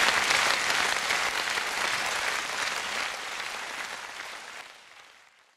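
Theatre audience applauding, the applause fading away over the last two seconds.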